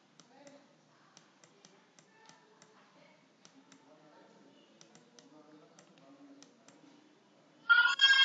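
Faint, irregular light clicks of a stylus tapping and writing on a tablet, over a quiet background; a voice starts near the end.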